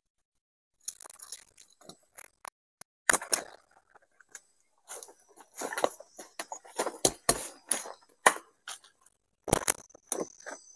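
Long green leafy fronds rustling and crackling as they are handled, in irregular bursts with a few sharp snaps.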